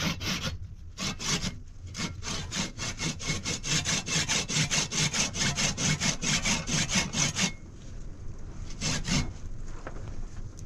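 Rapid rhythmic scraping strokes, about four a second, that stop abruptly about seven and a half seconds in, then a couple more strokes near nine seconds.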